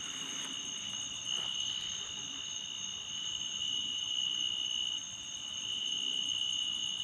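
Crickets trilling steadily at night, a continuous high-pitched insect chorus with several pitches layered together.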